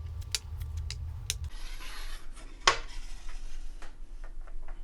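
Dominoes being stood up one after another on a table: a run of light clicks and clacks as the tiles are set down, with some rubbing and one louder clack about two and a half seconds in.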